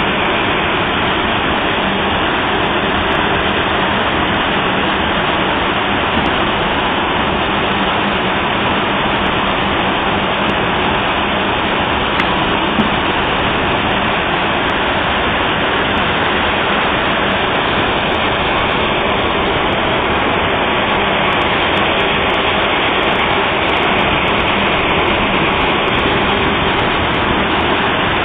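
TECO corn dryer running, its fans giving a loud, even rushing noise that holds steady throughout, with a faint hum underneath.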